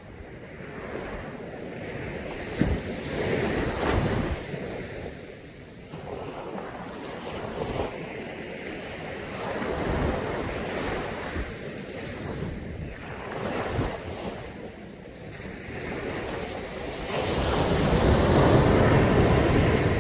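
Caribbean sea waves breaking on a beach, surging and washing back in swells every few seconds, the biggest wash near the end. Wind buffets the microphone.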